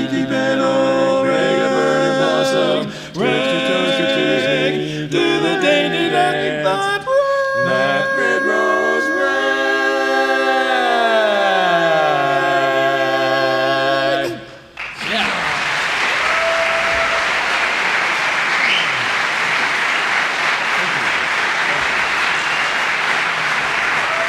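Barbershop quartet singing a cappella through the final phrase of a song, ending on a long held chord while the bass slides down, then cutting off together about 14 seconds in. Audience applause follows and carries on to the end.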